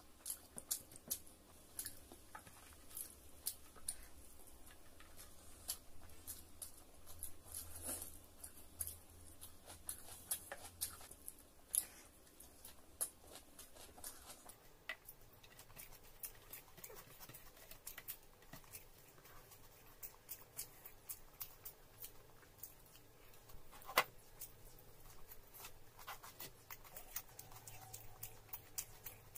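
Faint, close-up eating sounds of a person chewing and smacking food: many short, irregular wet clicks, with one sharper click about 24 seconds in.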